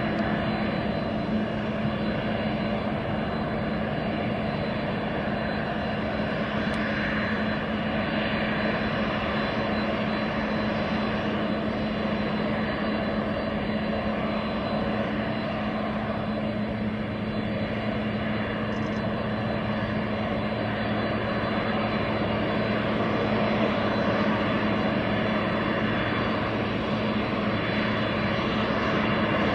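Boeing 777 freighter's GE90 turbofan engines running as the jet taxis: a steady jet whine over a constant low hum, with several high steady tones, swelling slightly near the end.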